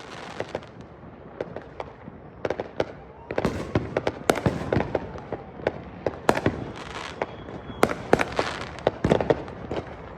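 Gunfire at a shooting range: more than a dozen sharp shots at irregular spacing, some coming in quick pairs.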